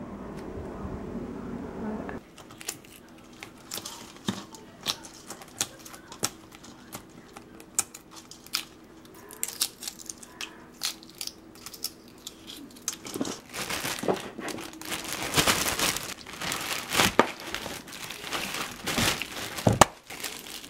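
A jet airliner's engine rumble for the first two seconds, then cracking and peeling of boiled eggshells, a string of small sharp cracks and clicks. From about two-thirds of the way through, denser and louder plastic-bag crinkling.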